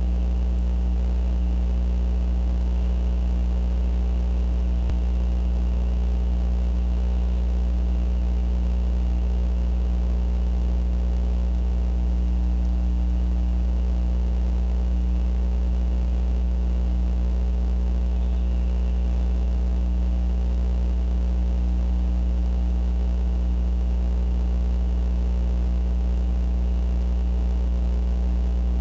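Steady electrical mains hum with its overtones and a faint hiss, picked up on the nest camera's audio line. It does not change throughout.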